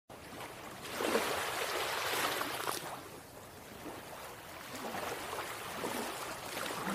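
Sea waves washing and breaking: a noisy rush of water that swells, eases off about three seconds in, and builds again.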